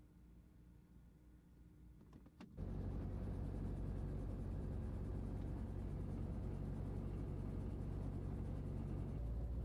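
A couple of faint clicks, then about two and a half seconds in a helicopter's engine and rotor noise starts suddenly and runs on as a steady low drone heard inside the cabin. Its lowest part grows stronger near the end.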